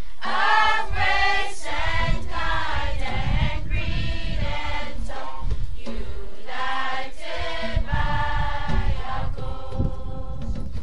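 Choir singing, a piece of music with several voices holding and changing pitched notes.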